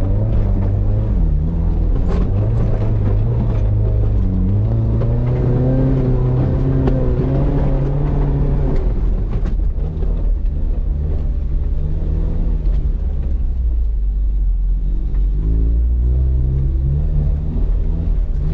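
Off-road 4x4's engine running under throttle, its pitch rising and falling as the revs change, with a deep rumble carrying through the second half.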